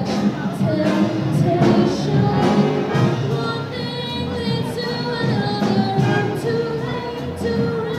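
School wind band of brass and saxophones playing, several parts holding notes together.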